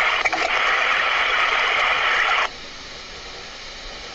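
Radio static: an even hiss that cuts off suddenly about two and a half seconds in, leaving only a faint background hiss.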